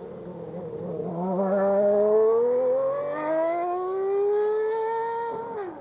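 Ferrari F93A Formula One car's V12 engine accelerating hard, its pitch climbing steadily for several seconds after a gear change about a second in, then dropping sharply near the end.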